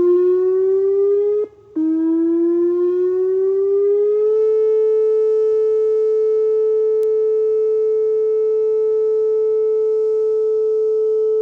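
Whelen WPS-2807 electronic outdoor warning siren sounding for a monthly test. Its tone rises in pitch, cuts out for a moment about one and a half seconds in, climbs again from a lower pitch, and settles into a steady tone after about four seconds.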